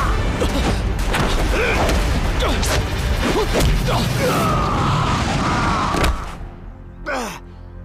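Martial-arts fight sound effects: rapid punch and kick impacts and sweeping whooshes over background music. The flurry stops about six seconds in, followed by one last falling swoosh.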